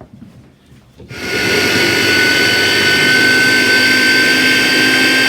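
Electric mini food processor switching on about a second in and running steadily with a high whine, chopping pieces of cooked chicken breast.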